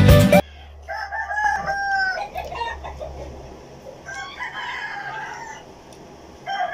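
Roosters crowing: a long crow about a second in, another about four seconds in, and a third starting at the very end.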